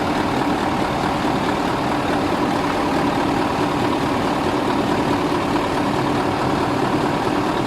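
2008 Mercedes-Benz Actros truck's diesel engine idling steadily while it drives the freshly charged R134a air-conditioning system.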